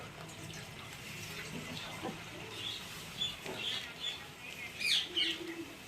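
Small birds chirping: a string of short, high chirps in the second half, with a quick sweeping call near the end, over faint background hiss.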